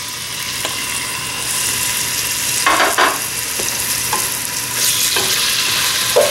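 Raw chicken cubes sizzling in hot olive oil in a pot, a steady hiss, while a wooden spatula stirs them, with a few short scrapes and knocks of the spatula against the pot.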